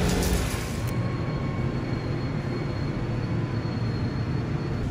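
Brief wet-street traffic noise, then, about a second in, the low rumble of a Seoul subway train at the platform with a faint, steady high whine.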